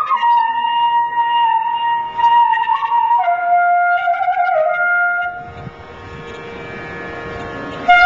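Indian flute music: long held notes with small bends between pitches over a steady drone. The flute stops about five and a half seconds in, leaving the drone on its own.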